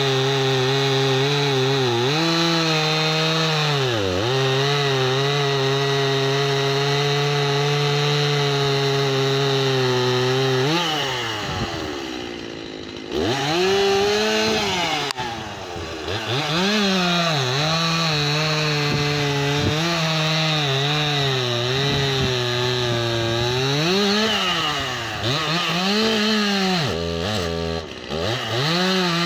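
Stihl MS 271 two-stroke chainsaw cutting through a fallen log under load, its engine pitch sagging and recovering as the chain bites. About ten seconds in it drops briefly to idle. It is then revved back into the cut in a series of rising and falling surges, dropping to idle once more near the end.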